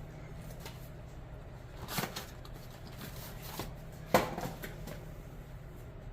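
Handling noises at a workbench: a few light knocks and clicks, the sharpest about four seconds in, over a steady low hum.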